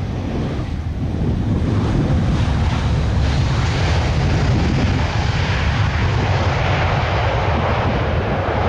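Airbus A320 jet engines rushing loudly as the airliner rolls out on the runway after touchdown. The noise swells from about two seconds in, over a steady low rumble of wind on the microphone.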